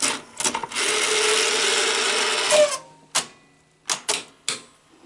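Sony SL-5000 Betamax VCR's tape transport whirring for about two seconds as it is tried in fast-forward or rewind. The whir rises slightly in pitch and stops, with sharp clicks of the mechanism shifting before it and four more after it.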